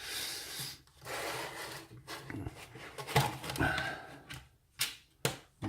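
Metal lock parts being handled: two stretches of rubbing or scraping in the first two seconds, then a few sharp clicks near the end, as the core is worked free of the lock body with a shim for disassembly.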